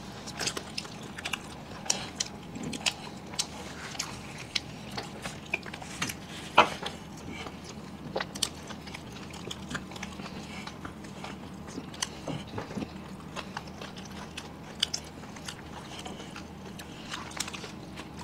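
Close-miked eating: people biting into and chewing egg rolls, heard as many scattered short, wet clicks and smacks.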